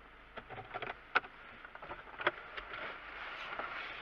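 Traffic noise heard from inside a stopped car, rising about halfway as a car drives past. Scattered sharp clicks and taps come in the first half.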